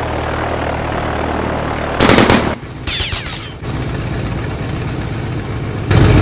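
Sound effects of a WWI propeller aircraft engine droning steadily, broken by a burst of rapid machine-gun fire about two seconds in and another that starts near the end. Between the bursts comes a short cluster of high gliding whistles.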